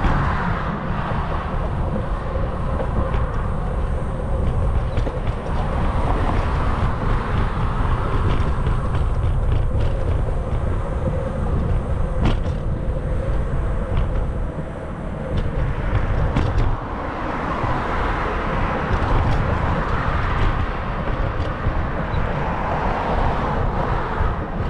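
Wind rushing over the microphone and road noise while riding a bicycle through city streets. The rumble eases briefly about two-thirds of the way through.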